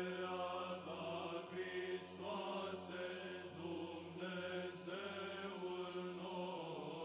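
Quiet church chant: voices singing a slow melodic line over a steady held drone note.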